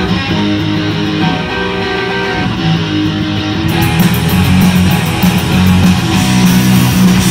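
Live rock band playing an instrumental passage: electric guitars and bass guitar, with the drum kit's cymbals joining in a steady beat about four seconds in.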